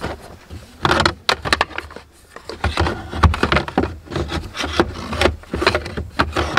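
Flat wooden camp-furniture pieces knocking and scraping against each other and a wooden crate as they are packed in: a string of irregular wooden clunks.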